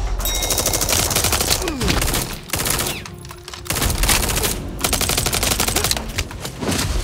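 Rapid automatic fire from a toy foam blaster in two bursts of about two seconds each, with a short pause between them. A falling whine follows the first burst.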